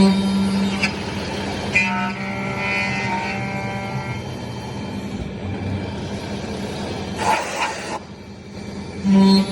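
Single-spindle CNC lock-hole router for aluminium door profiles running a cycle: a steady motor hum, with a short loud burst at the very start and another near the end, and a higher whine between about two and four seconds in.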